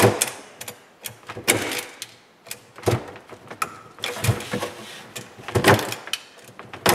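Razor-blade knife cutting and scraping through the plastic grille of a Mahindra eMax 22 tractor, about six short rasping strokes at irregular intervals, roughly one a second.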